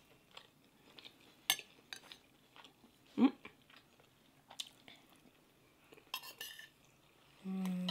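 Spoons and forks clicking and scraping against plates and a glass serving bowl, with faint chewing between the clinks. Near the end someone hums a short, steady 'mmm' with a full mouth.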